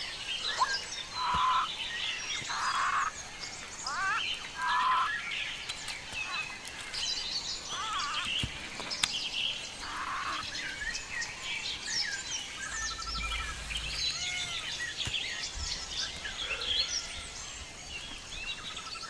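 Forest birds calling and chirping at once: many short whistles sweeping up and down, a few louder short calls repeated every second or two in the first half, and some fast trills.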